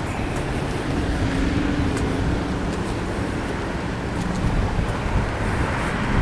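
Gusty wind rumbling on the microphone over a steady outdoor background noise.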